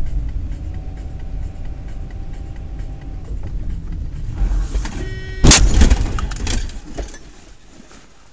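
A car on the road with a steady low rumble, then about five and a half seconds in a loud collision, a crash of the car into the side of a dark 4WD minivan, with crunching for about a second and a half after the impact.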